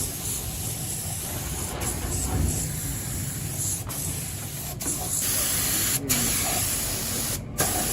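Steady hiss of air spraying, over a low workshop rumble. It gets louder and sharper about five seconds in, then breaks off briefly near the end.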